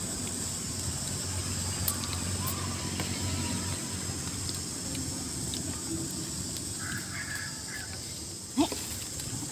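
Countryside ambience: a steady high insect drone, with a bird calling briefly about seven seconds in and a sharp click near the end.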